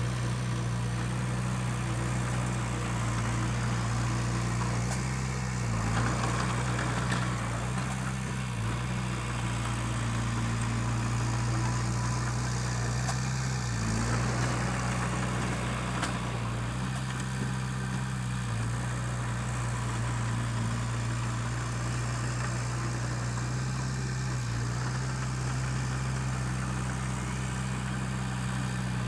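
Komatsu D20P bulldozer's diesel engine running steadily, with a few brief dips in its hum.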